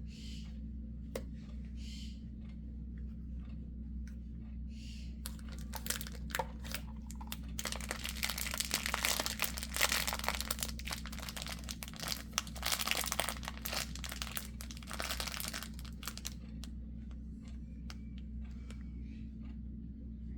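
Packaging of a kinetic sand surprise toy being crinkled and torn open. The crinkling is dense from about five seconds in until about sixteen seconds, with scattered light clicks before and after, over a steady low hum.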